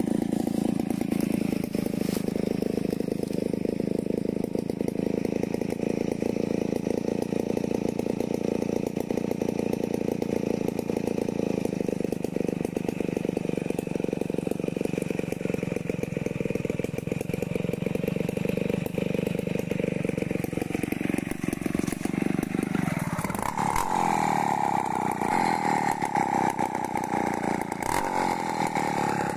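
Stihl 070 two-stroke chainsaw running at idle. About 23 seconds in it speeds up, its pitch rising, and it stays at the higher speed to the end.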